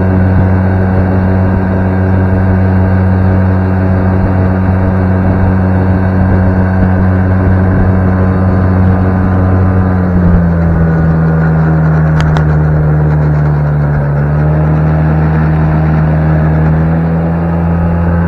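Small outboard motor running at a steady cruising speed, pushing the boat along. About ten seconds in its pitch drops a little as the throttle is eased back.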